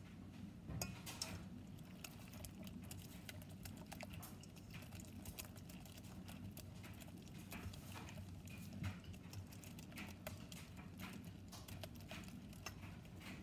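Silicone-coated wire whisk beating a wet banana-and-egg batter in a stainless steel bowl: quick, irregular ticks and taps of the whisk against the bowl with wet squelching, and a couple of louder knocks.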